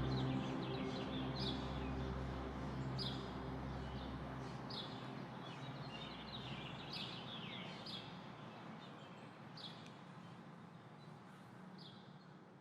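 Short, repeated bird chirps, one every second or so, over a soft steady rush. Low held music tones fade out in the first half, and the whole sound fades away gradually.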